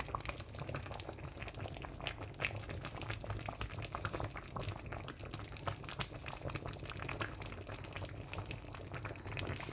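Thick ogbono soup simmering in a pot: many small, irregular bubbling pops, over a low steady hum.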